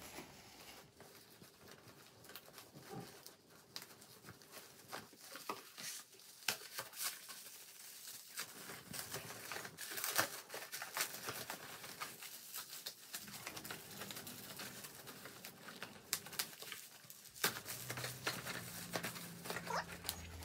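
Bubble-wrap packaging crinkling and tearing as it is pulled off a long parcel, in irregular crackles.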